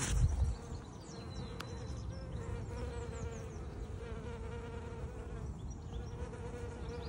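A flying insect buzzing steadily, its hum wavering slightly in pitch. There is a brief low rumble at the very start.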